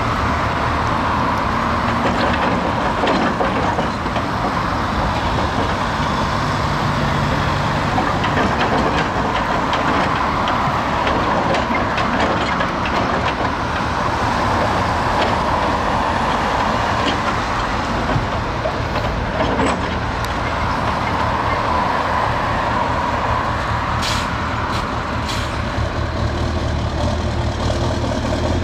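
Doosan 300 excavator's diesel engine working steadily while its bucket loads soil and stones into a Scania dump truck's steel body, with scattered knocks and clatter, over a steady rush of passing road traffic.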